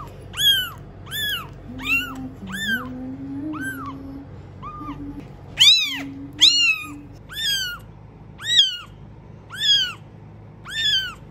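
A ten-day-old kitten mewing over and over, about a dozen short high-pitched calls roughly a second apart, each rising and then falling in pitch.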